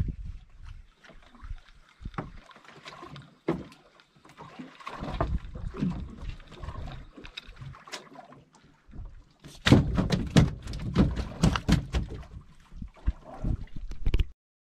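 Irregular knocks, thumps and clatter on the deck of a small fibreglass fishing boat, with a dense run of sharp knocking starting about ten seconds in. The sound cuts off suddenly near the end.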